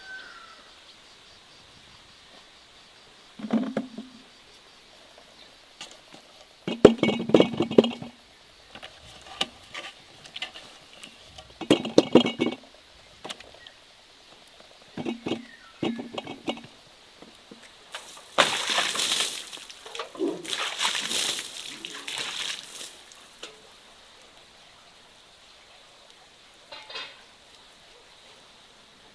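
Fruit dropped by hand into large glass jars, with knocks and glass clinks in short clusters, then a few seconds of splashing liquid.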